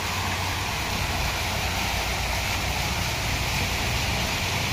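Ornamental garden fountain: water jets splashing down into the pool with a steady hiss, over a low steady hum.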